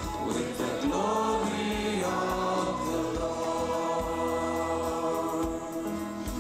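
Gospel worship song: a choir holding long notes over instrumental backing with a steady beat, between sung lines.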